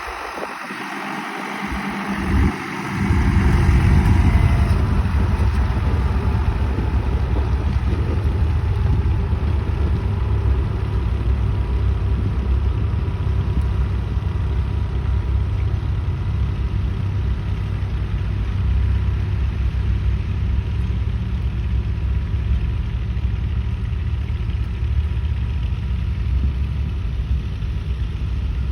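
Tractor engine running steadily, a deep rumble that comes in about three seconds in and holds.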